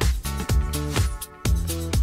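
Upbeat dance music with a steady beat and a bass line.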